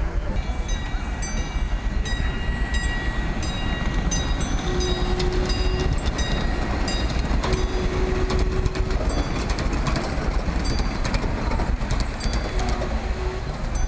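Miniature ride-on train rolling past on its small-gauge track, a steady low rumble with many sharp clicks of the wheels over the rail joints, and a repeated ringing tone over it.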